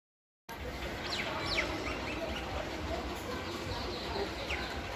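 Birds calling: several short, high whistles that each slide down in pitch, over a steady low background rumble. The sound starts abruptly about half a second in.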